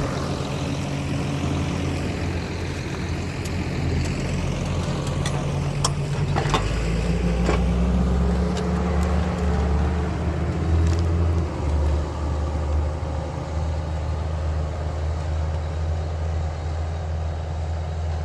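Large tractor's diesel engine running steadily under load, its low hum deepening about seven seconds in.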